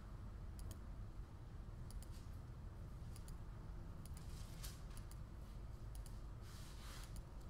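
Bible pages being turned and handled while looking up a verse: scattered light clicks and a few soft rustling swishes, the longest about four and a half and seven seconds in, over a low steady room hum.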